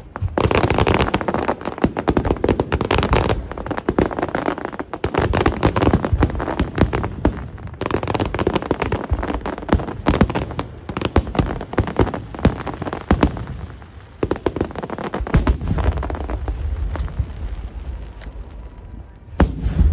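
Aerial fireworks going off in quick succession: many sharp bangs and crackling shell bursts overlapping. The barrage thins out about two-thirds of the way through, then a fresh loud volley comes right at the end.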